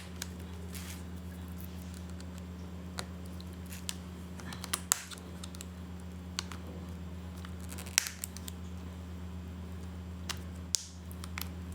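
Sharp plastic clicks, a handful spaced a second or more apart, as a plastic spudger pries a laptop's screen bezel and its clips pop loose. A steady low hum runs underneath.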